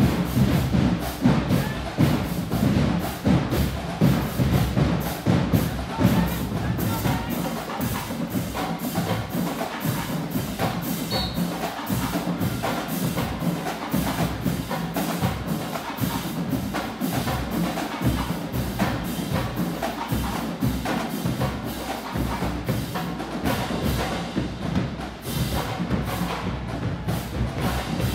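High school marching band playing live, its percussion section prominent with a dense, fast run of drum hits.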